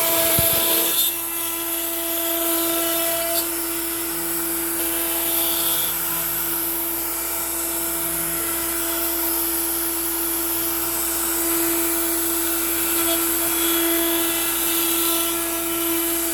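Makita router on an Onefinity CNC, spinning a 1/4-inch upcut bit at about 18,000 rpm and cutting pine at 325 inches per minute. It makes a steady high whine over cutting noise and holds its speed under the load.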